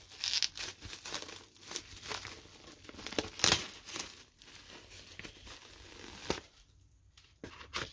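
Clear plastic shrink wrap being torn and peeled off a vinyl record jacket, crinkling and crackling irregularly, with the sharpest crackle about halfway through; it dies down near the end.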